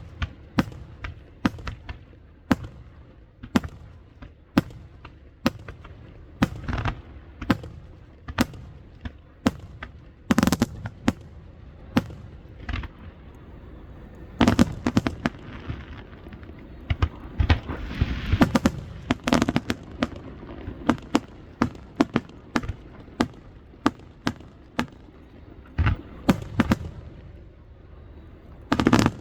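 Aerial fireworks shells bursting one after another in a display: a run of sharp bangs at uneven spacing. Thicker spells of rapid bursts come about halfway through and near the end, with a crackle around the middle.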